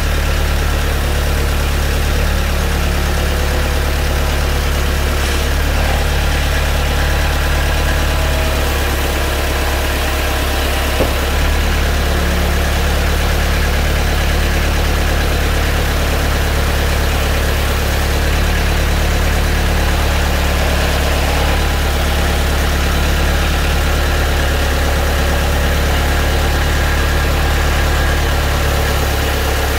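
Kubota compact tractor's diesel engine running steadily at idle while its LA534 front loader slowly moves a load on pallet forks. There is a brief click about eleven seconds in.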